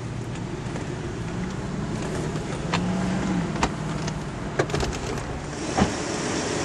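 Car driving, heard from inside the cabin: a steady low rumble with a few scattered clicks and knocks. A hiss comes in near the end.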